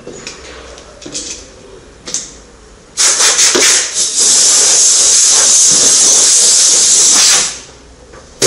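Compressed-air blow gun on a shop air hose blowing a loud, steady hiss of air. It starts about three seconds in, dips briefly a second later, and cuts off after about four and a half seconds. A few light knocks come before it.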